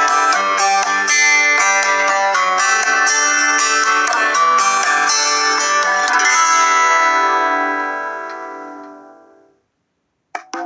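Honor 7A (EMUI) ringtone: a quick plucked-guitar melody that ends on a chord about six seconds in and rings out, fading away over about three seconds. Near the end, after a moment of silence, the next tone starts with rapid woodblock-like taps.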